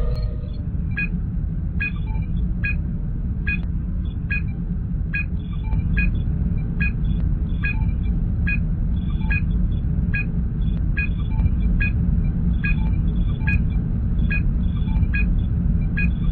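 Star Trek starship ambience sound effect: a steady low engine hum, with a short electronic sensor-scan beep repeating evenly a little more than once a second.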